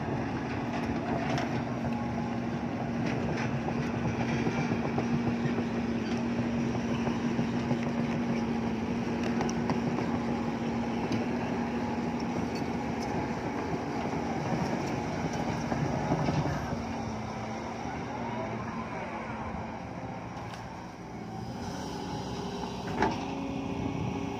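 Sumitomo hydraulic excavator's diesel engine running steadily under load as the machine swings and digs, with its engine note changing a little past the middle. A single sharp knock comes near the end as the bucket works the soil.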